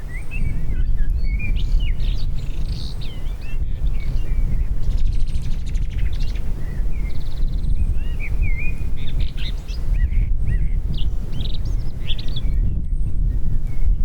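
Small birds singing, with a string of warbling, chirping phrases throughout, over a steady low rumble of wind on the microphone.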